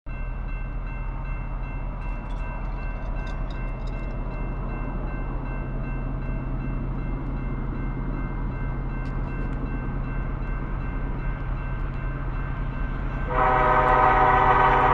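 Approaching freight locomotive's air horn sounding one loud, many-toned blast starting about 13 seconds in, over a steady low rumble.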